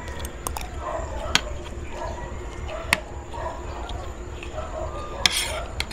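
Spoon and fork clinking and scraping on a ceramic plate while eating: a few sharp separate clicks and one short scrape near the end.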